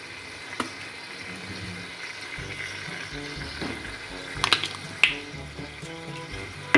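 Vegetables sizzling in a steel kadhai, with a few sharp clinks of a metal spatula against the pan. Soft background music comes in about two seconds in.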